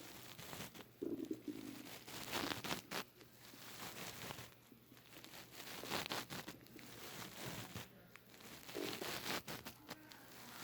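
Human stomach rumbling and gurgling in irregular low bursts, mixed with rustling and crackling.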